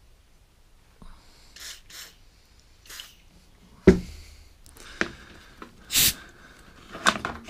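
Short hisses of a WD-40 aerosol sprayed through a lawnmower carburettor's slow-running jet to clear it, then a thump as the can is set down. Near the end come short blasts of compressed air from an air blow gun, the loudest about six seconds in.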